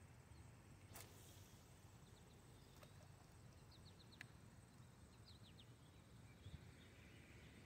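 Near silence, broken by faint, very short high bird chirps in a few small quick groups and a few soft clicks, the sharpest about a second in.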